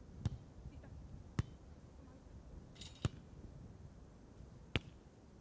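A beach volleyball being struck by players' hands four times during a rally: sharp slaps about one to two seconds apart.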